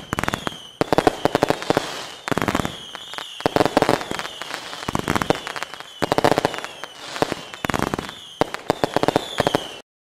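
Fireworks going off in quick succession: whistles sliding down in pitch over a burst of crackling bangs about every second or so. The sound stops abruptly near the end.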